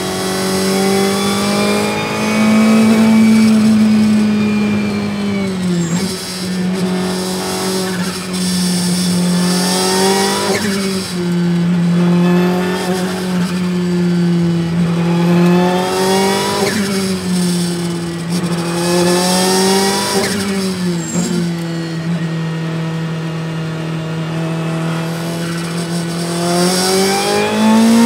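Ferrari 488 GT Modificata's twin-turbo V8 race engine heard from inside the cockpit, its pitch climbing and falling as the car is driven hard through a run of corners. Several quick gear changes, up and down, cut the note sharply.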